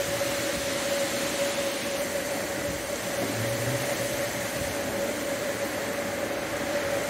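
Distant electrical transformers failing in a severe windstorm: a low electrical buzz comes up about three seconds in and lasts about a second. Under it runs the steady rushing noise of the storm and a steady high hum.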